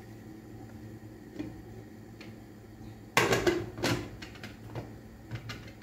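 Cookware being handled: clattering knocks of a pot lid and pot, the loudest about three seconds in with a second a moment later, and a few lighter clicks, over a steady low hum.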